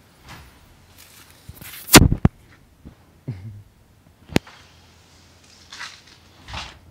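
Handling noise on a handheld camera's microphone: rustling and a few sharp knocks, the loudest about two seconds in and another about four and a half seconds in.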